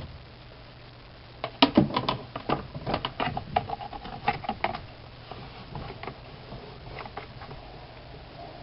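A quick, irregular run of sharp clicks and knocks for a few seconds, then a few lighter ticks, from the plastic parts of a small twin-tub washing machine.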